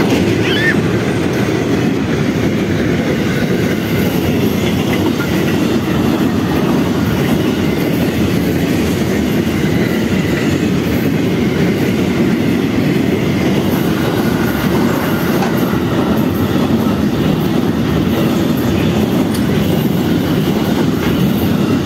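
Freight train of covered wagons passing close by, a steady loud rumble of wagons running over the rails.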